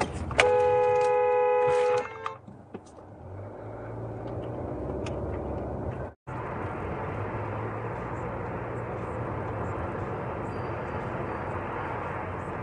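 A car horn held for about a second and a half, then the steady engine and road noise of a car driving.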